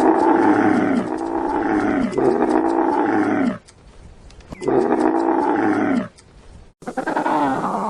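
A large animal calling: four drawn-out calls in quick succession, each falling in pitch, with a pause after the third. Near the end a different wavering animal call begins.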